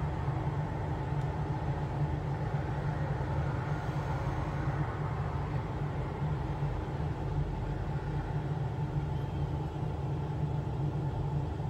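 Steady low hum and rumble of background noise with a few faint constant tones, unchanging throughout and with no distinct events.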